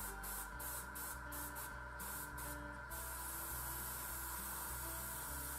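Gravity-feed airbrush spraying yellow paint: a hiss of air, cut off in short stops several times during the first three seconds, then held steadily.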